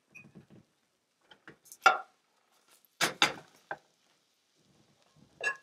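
A scatter of short clinks and knocks from kitchen dishes and utensils being handled, the loudest about two and three seconds in and another near the end.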